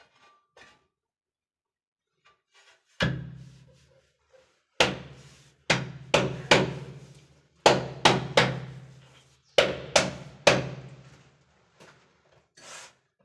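Open palm slapping a large ceramic wall tile to bed it into the adhesive: about a dozen sharp thumps starting about three seconds in, some in quick runs of two or three, each ringing briefly in the bare room.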